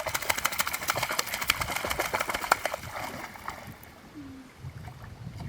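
Rapid, dense water splashing and spattering for about three seconds, then dying down to a few faint splashes.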